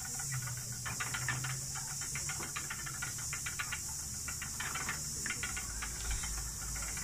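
Steady high drone of cicadas, with light quick clicking and a low whir from a wooden treadle spinning wheel being worked.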